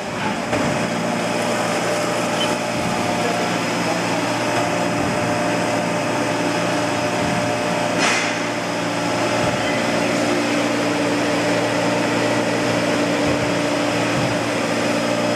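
Haas SL-10T CNC lathe running, its spindle turning the chuck: a steady machine hum with several held tones. There is a brief click about eight seconds in.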